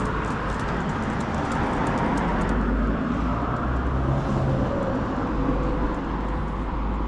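Steady street traffic noise: cars passing along the road, a continuous rumble of engines and tyres.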